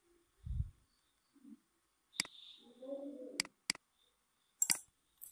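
Computer mouse button clicks, a handful of sharp single clicks with a quick pair about three and a half seconds in, as items are picked in the software. A low dull thump comes about half a second in.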